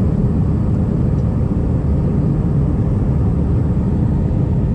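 Steady jet airliner cabin noise during departure: a deep, even rumble of engines and airflow heard from inside the cabin at a window seat.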